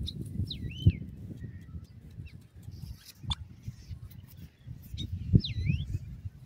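Grey francolins dust-bathing in loose dry dirt: wings and bodies scuffling and flapping, with soft thuds. Two short, high, swooping bird chirps are heard, one near the start and one about five seconds in.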